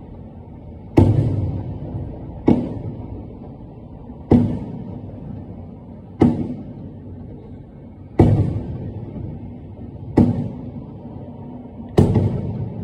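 Aerial firework shells bursting in a display: seven sharp booms about one and a half to two seconds apart, each dying away over a second or so.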